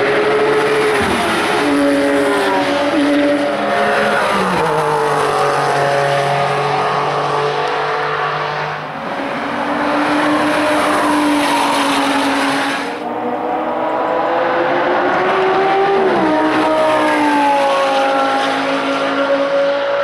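Porsche sports cars' flat-six engines running hard as they pass on a race circuit. The engine note holds steady and then drops sharply in pitch several times over.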